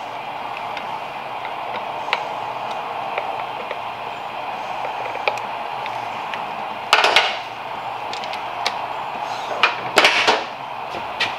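Hand tools working the bolts of a motorcycle's primary cover: scattered small metallic clicks and two short, louder bursts of tool noise about seven and ten seconds in, over a steady background hiss.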